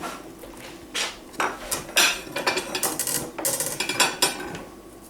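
Table knife spreading butter on a slice of tea cake: a quick run of scrapes and clicks of the knife against the cake and plate, starting about a second in and stopping near the end.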